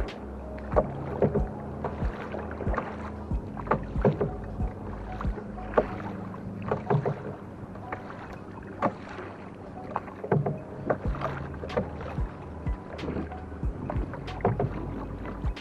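A wooden-style Canadian canoe being paddled solo: water splashing and dripping off the paddle, with short irregular clicks and light knocks every half second or so.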